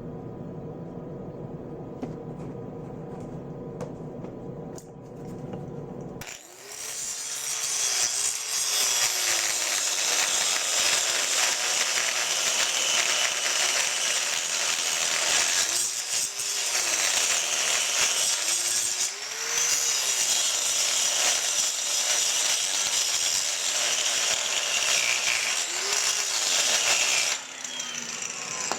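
Hand grinder grinding out a steel weld bead that was laid without shielding gas. It starts about six seconds in, runs steadily with its whine dipping and recovering several times, and stops near the end.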